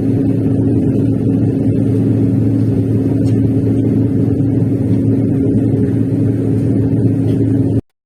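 KHIND 60-inch ceiling fan running: a steady low hum with a rumble of moving air, cutting off suddenly near the end.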